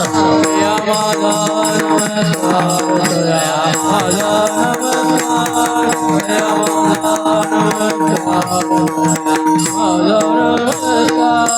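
Marathi devotional bhajan music: a held melody with voices, over steady hand-drum strokes and rapid cymbal or rattle strikes keeping the rhythm.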